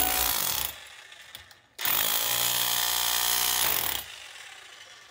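Palit 1280 W electric chipping gun hammering a chisel bit into concrete: a short burst right at the start, then a steady run of about two seconds that stops abruptly.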